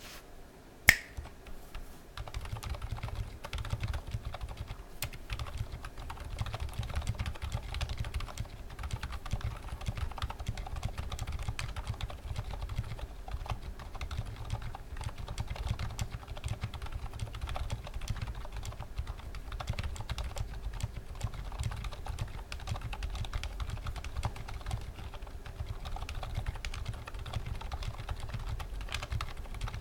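Continuous fast typing on a GMMK TKL mechanical keyboard with silent switches: TTC Silent Red housings with Aliaz stems, lubed with Tribosys 3204. A single sharp click comes about a second in, and the steady run of keystrokes starts about two seconds in.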